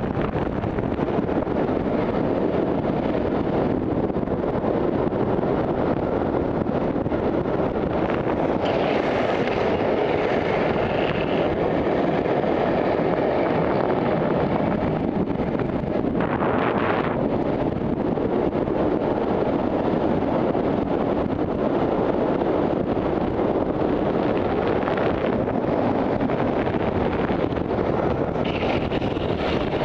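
Wind rushing over a helmet camera's microphone and longboard wheels rolling on asphalt at speed during a downhill run, a steady loud rush. Three times a sharper hiss rises over it for a second or two.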